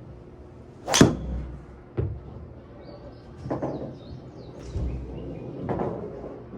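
Titleist TSR4 driver striking a golf ball: one sharp, loud crack about a second in. A duller knock follows a second later, then a few softer knocks and rustles.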